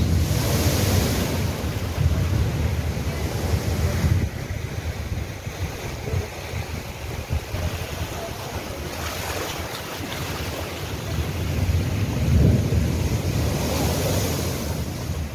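Rough sea surf breaking over a rock seawall and washing across flooded ground, surging louder several times, with strong wind rumbling on the microphone.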